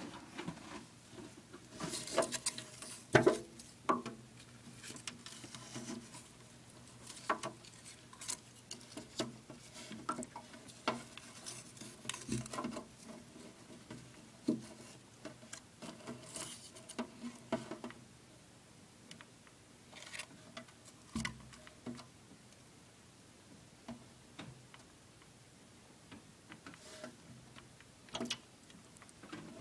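Irregular light taps, clicks and rustles from a hand and phone handling around a plastic terrarium, scattered and loudest in the first few seconds, over a faint steady hum.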